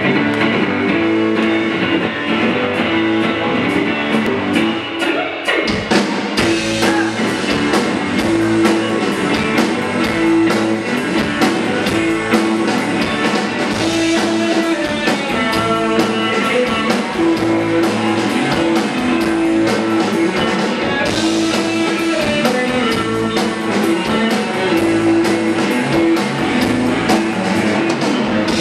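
A rock band playing live without singing: electric guitar and other instruments, with the drum kit coming in about five seconds in.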